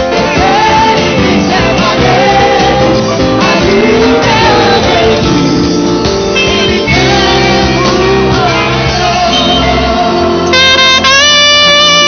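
A mixed vocal group of women and a man singing together over a band accompaniment. About ten and a half seconds in, it switches to a solo saxophone playing a held melody.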